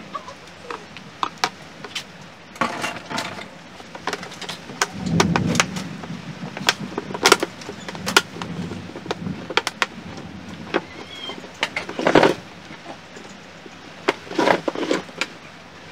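Irregular clicks, knocks and clatter from hands handling small hard parts and tools, as in working on a rice cooker, with a heavier thud about five seconds in and another sharp knock about twelve seconds in.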